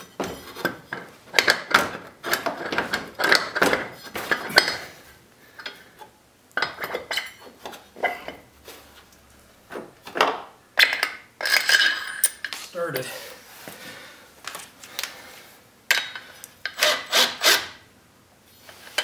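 Aluminium secondary clutch sheaves of an ATV's CVT clinking, scraping and rubbing against the shaft and helix as they are worked into place by hand, in irregular bursts, with a quick run of sharp clicks a couple of seconds before the end.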